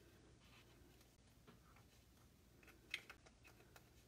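Near silence, with faint light clicks and taps of a wooden stir stick against a plastic mixing cup of resin; one slightly sharper click about three seconds in.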